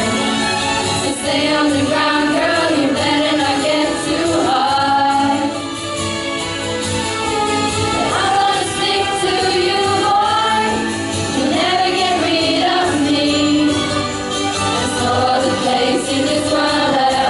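Singing voices over instrumental backing, a pop song in full swing with held, sliding sung notes.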